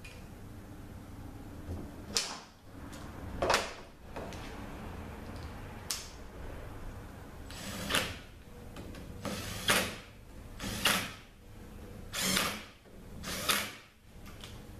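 A hand tool tightening the bolts of a 48RE valve body's 3-4 accumulator cover, in about nine short bursts a second or so apart.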